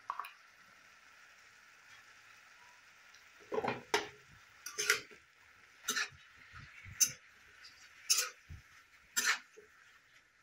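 Metal spatula scraping and knocking against a metal kadai, about one stroke a second starting some three and a half seconds in, as leafy greens and vegetables are stirred. A faint steady hiss lies underneath.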